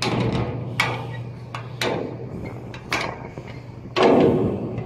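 Footsteps clanking on a ship's metal stairway, about one step a second, with a louder scuffing clank about four seconds in. A steady low hum runs underneath.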